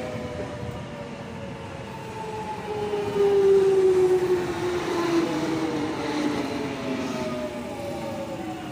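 Jubilee line 1996-stock Underground train moving slowly through the platform, its traction motors whining in several tones that slowly fall in pitch as it slows, loudest about three to five seconds in.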